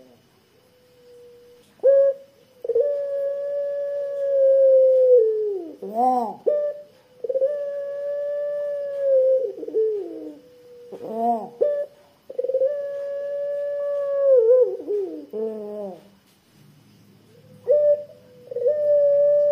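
Puter pelung collared dove cooing: four long, thick-voiced drawn-out 'kwook' coos, each held steady for two to three seconds and wavering downward at its end, with short rising notes between them.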